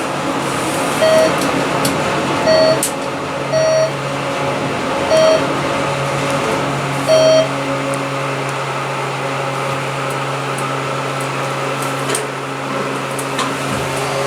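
Inside a ThyssenKrupp elevator car: five short electronic beeps, all on the same tone, sound at uneven intervals of one to two seconds. A steady low hum begins a few seconds in and continues, typical of the car travelling.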